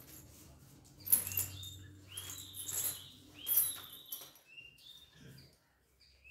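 Small birds chirping repeatedly in short calls, mixed with several sharp clinks and rustles, the loudest about a second in.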